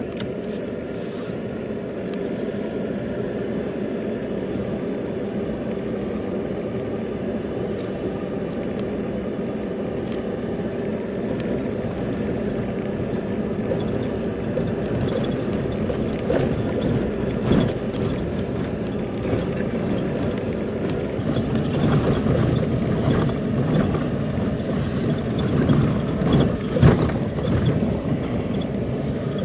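Truck driving on a rough dirt road, heard from inside the cab: a steady engine and tyre rumble, with knocks and rattles from bumps that grow more frequent and louder in the second half.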